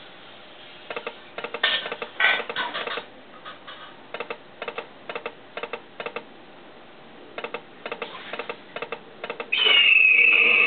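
Aristocrat Buffalo slot machine's reel-stop clicks during free spins: three quick runs of sharp ticks as the video reels land, a few seconds apart. Near the end a falling-pitch chime sounds for a small line win.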